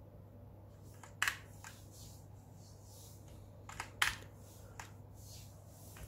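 A few separate key presses on an HP GK100 mechanical keyboard: short, sharp clicks scattered irregularly, the two loudest about a second in and about four seconds in.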